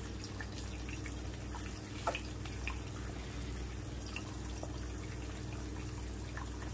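Eggs frying in oil in a non-stick frying pan: a sizzle with scattered small crackles and pops, one sharper pop about two seconds in, over a steady low hum.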